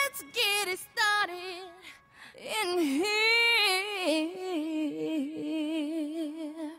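A solo woman's voice singing unaccompanied without clear words, in several phrases: a held note at the start, a few short notes, then a long phrase with wavering pitch, ending on lower notes.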